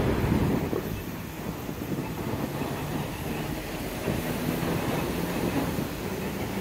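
A rail vehicle running, heard as a steady rumble with a faint low hum.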